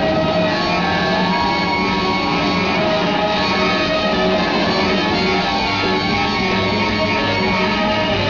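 Large jazz ensemble playing live, with trumpet, trombone and flute sounding together over a dense band texture.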